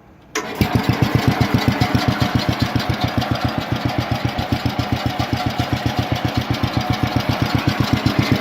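Small garden tractor engine coming in suddenly about half a second in and running steadily with an even, rapid firing beat.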